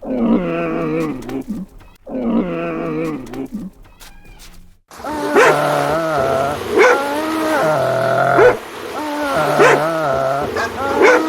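A pack of dholes (Asian wild dogs) calling: two drawn-out wavering calls, then from about five seconds in several animals calling over one another with short sharp yelps.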